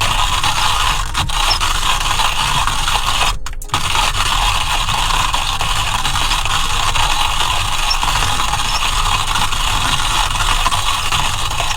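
Hand-cranked coffee mill grinding beans, a steady gritty grind with a short break about three and a half seconds in.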